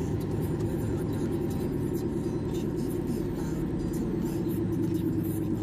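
Steady drone of a car driving at road speed, heard from inside the cabin, with low road and engine noise.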